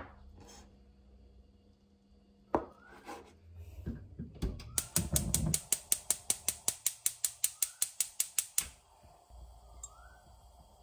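Gas cooktop's spark igniter clicking rapidly, about six clicks a second for around four seconds, then stopping suddenly as the burner lights. Before it come a sharp knock and a low clatter.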